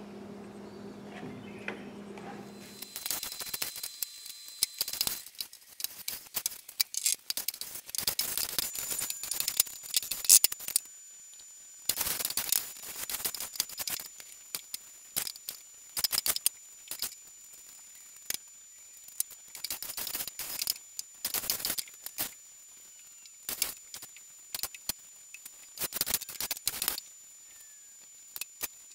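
Clusters of quick scrapes and clicks, a second or two apart, as a drywall blade and small roller spread epoxy over a bare plywood boat hull. A steady low hum sounds for the first few seconds and then stops.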